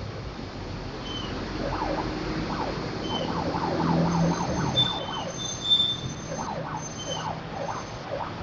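Passing bus sounding a telolet multi-tone air horn: a quick run of rising-and-falling whoops, about three a second, with a short break partway, over engine noise that swells in the middle.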